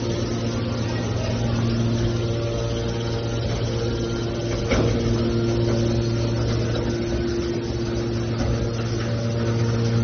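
Aluminum can baler's hydraulic power unit running with a steady hum, with a single knock about halfway through.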